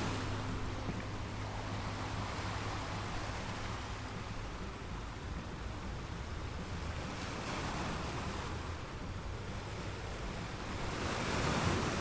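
Ocean waves washing on a shore, rising and falling in slow surges, with a swell building near the end.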